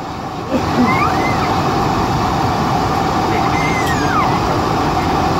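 Steady cabin noise inside a Qantas Boeing 747-400ER on the ground after landing: engine and airflow noise with a constant hum.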